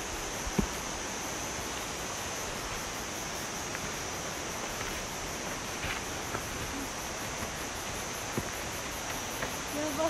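Insects droning in a steady high tone over the even rushing hiss of a mountain stream, with a single knock about half a second in.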